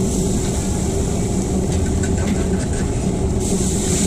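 A steady low mechanical hum with a droning pitch. About three and a half seconds in, a hissing sizzle starts as the basted octopus on the grill flares up in flames.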